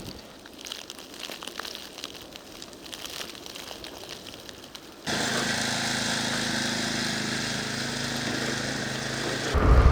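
Faint scattered crackling. About halfway through it is cut off by a small engine running steadily at an even speed.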